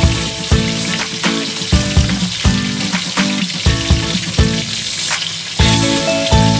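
Hot dogs sizzling and crackling as they fry in oil in a frying pan, with background music underneath.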